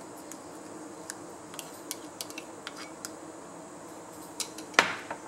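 A plastic spoon scraping and clicking against a small glass bowl while ginger-garlic paste is scooped out: a scatter of light ticks, then a sharper knock near the end, over a faint steady hum.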